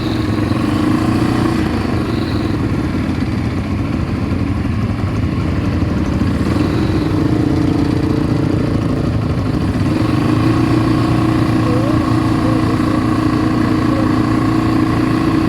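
ATV engine running under way. The engine note drops shortly after the start and picks up again about ten seconds in.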